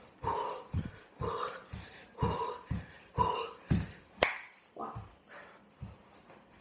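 Dancing feet thumping on the floor about twice a second, with short breathy vocal sounds from the dancer in time with the steps. A single sharp snap about four seconds in is the loudest sound. The steps thin out and fade near the end.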